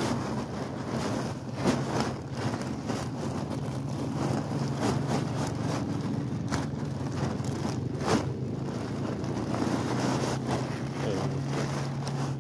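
Plastic bag of shredded-bark mulch being emptied onto a pile: the plastic crinkles and the mulch slides out, with several short sharp rustles, over a steady low hum.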